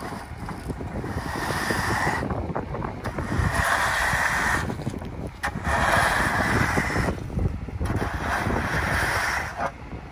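Screed board scraping across wet concrete as a fresh slab is struck off, in four long swishing strokes, over the steady low rumble of a concrete mixer truck.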